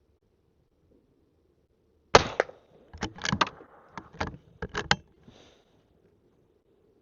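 A single shot from a Henry lever-action .22 LR rifle about two seconds in, followed by a run of sharp metallic clicks as the lever is worked to eject the case and chamber the next round.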